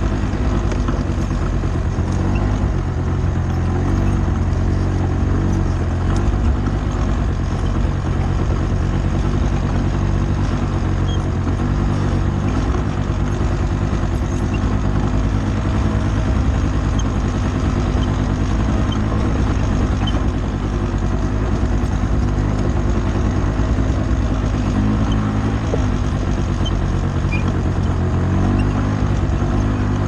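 Polaris 6x6 ATV engine running steadily under way while carrying a load of firewood, heard up close from a mount on the machine, its pitch shifting slightly now and then.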